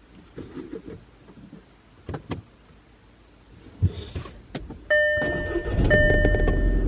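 Inside a car: a few clicks and knocks, then the car's warning chime dings about once a second while the engine cranks and starts running with a steady low rumble. The car was reluctant to start.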